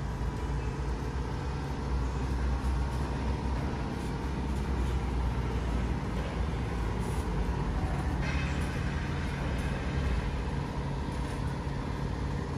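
Vehicle engine idling steadily: a low, even hum with a faint steady whine above it.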